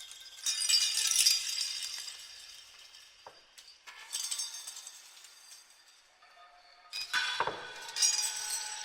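Heavily reverberated metallic clinking and rattling, like chains and metal struck together, in four sudden bursts, each ringing and dying away. The third burst, about seven seconds in, has a deep boom under it.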